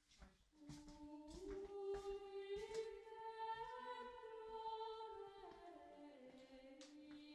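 Soft background music: a wordless voice, sung or hummed, holding long drawn-out notes that step up a little over a second in and sink back after about five seconds. A few faint knocks sound under it.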